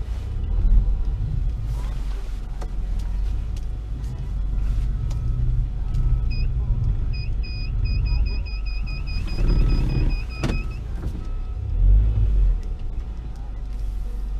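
Low steady rumble of a pickup truck heard from inside its cabin. From about six seconds in, an electronic warning chime beeps about four times a second for some four seconds, then stops.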